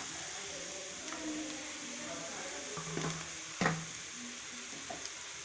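Cabbage, capsicum and beans frying with egg and grated carrot in a hot pan, a steady sizzle, with a single sharp knock about three and a half seconds in.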